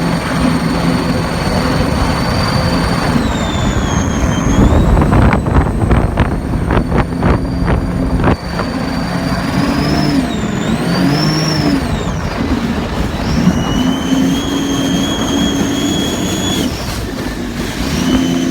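Supercharged car engine running, with a high supercharger whine that rises and falls with engine speed. Between about four and eight seconds in comes a run of rapid choppy pulses, the turbo-like flutter the owner is hearing from the supercharger.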